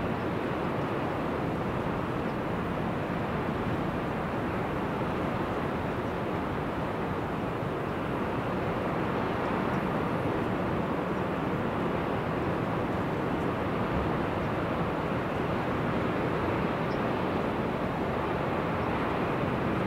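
Steady coastal ambience: an even rushing wash with no distinct events, growing slightly louder about nine seconds in.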